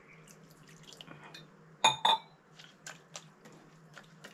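Water trickling from a steel tumbler into a stainless-steel mixer-grinder jar, then two sharp ringing clinks of steel on steel about two seconds in as the tumbler is handled and set down. After that, a hand stirring the wet coconut and spice mix inside the steel jar, with small light clicks against the metal.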